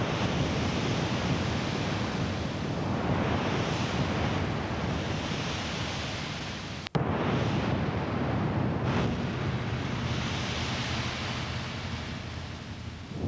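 Rushing underwater noise that swells and fades every few seconds, the breathing of scuba divers through their regulators and their exhaled bubbles heard through a camcorder's underwater housing. The sound cuts out for a split second about halfway through.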